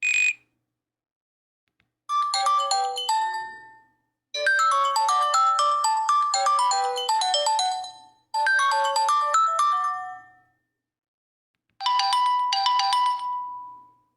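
Nokia 8000 4G default ringtone playing: a melody of quick, bright notes in four phrases with short pauses between, starting about two seconds in. A short single tone sounds at the very start.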